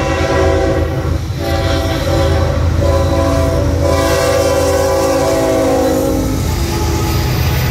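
Air horn of a Florida East Coast GE ES44C4 diesel locomotive blowing for a grade crossing as it approaches and passes: a blast with a short break about a second in, another brief break near three seconds, then a long blast that stops about six and a half seconds in. Underneath it is the steady rumble of the locomotive's engine and wheels going by.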